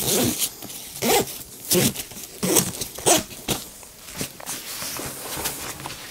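Nylon backpack being handled and turned over: a run of short fabric scrapes and rustles, about five in the first three and a half seconds, then softer rustling.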